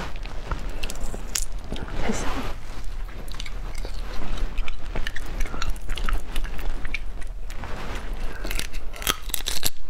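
Crayfish shells being cracked and peeled by hand, with biting and chewing of the meat: a run of sharp crackles and clicks.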